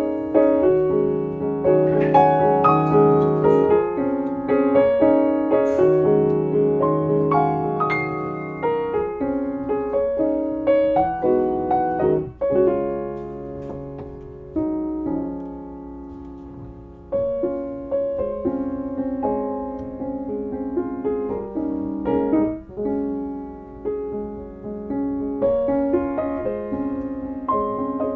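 Gentle solo piano music playing in the background, one chord or note after another, each fading away.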